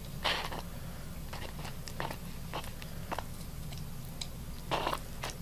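Rhinoceros iguana biting and chewing food from a bowl: a series of short, crisp crunches at irregular intervals, the loudest near the end.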